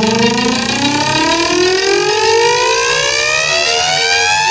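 Siren sound played through small sound-system speakers: one slow wail climbing steadily in pitch, with a faint low pulse repeating beneath it.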